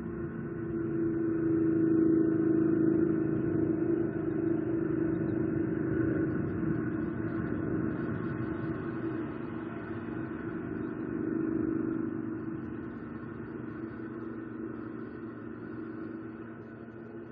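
Steady low engine hum of a passing vehicle. It swells about two seconds in, swells again around eleven seconds, then fades.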